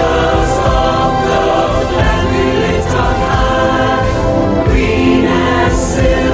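A choir singing a song together, holding sustained notes at a steady level.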